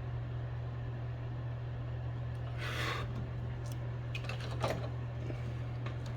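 Soldering a battery lead onto a circuit board: a brief hiss of flux sizzling under the soldering iron about two and a half seconds in, then a few light clicks of tools. A steady low electrical hum underneath.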